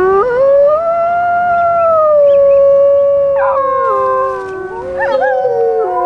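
Wolves howling: one long howl rises and holds steady, then more howls at different pitches join in and overlap from about halfway through, sliding up and down.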